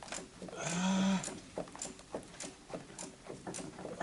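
Irregular light clicks and taps of hand tools working on bolts in a car's suspension. About a second in, a person lets out a short, drawn-out vocal sound without words.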